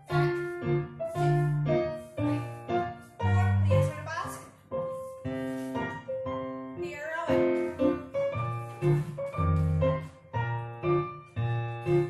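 Solo piano music playing as ballet class accompaniment, with bass notes and chords struck one after another in a steady rhythm.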